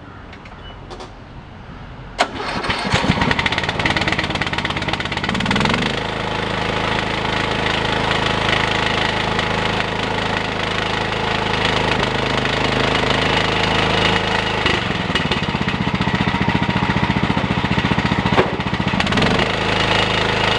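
Cub Cadet 1018 lawn tractor engine started by its starter: a click about two seconds in, a few seconds of uneven cranking and catching, then the engine running steadily, its speed shifting a couple of times near the end. It is the first start on a newly replaced starter solenoid.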